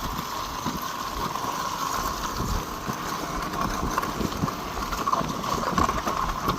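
A vehicle's engine running steadily at low speed, with an uneven low rumble underneath.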